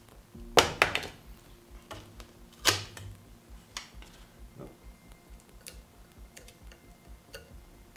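Double-sided grip tape being pulled off its roll and handled for a golf shaft: a few sharp crackling rips in the first three seconds, then faint scattered ticks and crackles.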